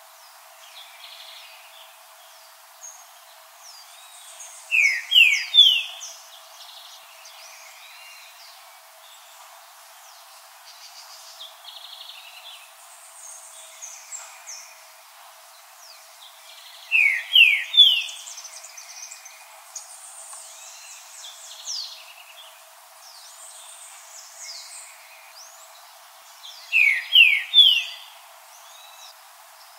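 Green-winged saltator singing three loud phrases, each a quick run of three or four rising whistled notes, about ten to twelve seconds apart. Other birds chirp faintly and higher in pitch between the phrases.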